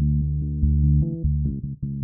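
Kurzweil K2700 keyboard playing a bass patch: a bass line of several low, sustained notes, with short breaks between some of them.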